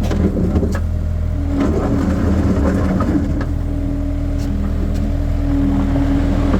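Skid steer engine running steadily, with a few knocks and rattles from the machine as it works the gravel.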